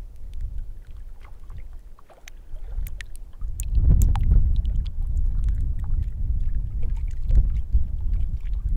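Wind buffeting the microphone: a low, uneven rumble that grows stronger about three and a half seconds in, with scattered light ticks over it.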